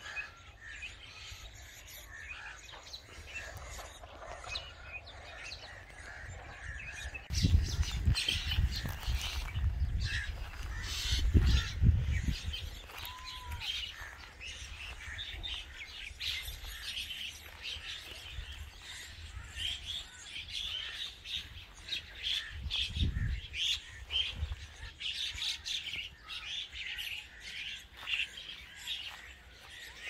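Baby myna calling: many short chirps and squawks in rapid succession. Loud bouts of low rumble come from about a quarter to two-fifths of the way in, and briefly again later.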